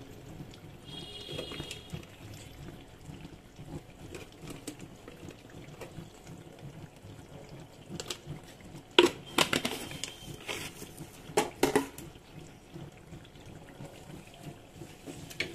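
Mutton curry bubbling gently in a pan on the stove, with a few sharp clicks about halfway through.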